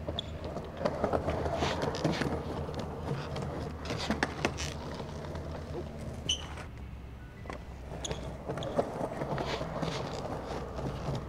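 Skateboard wheels rolling on smooth paving, with scattered clacks and knocks from the board.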